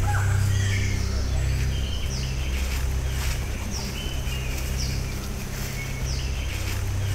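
Forest ambience: birds calling with short falling chirps about once a second, over a steady low hum.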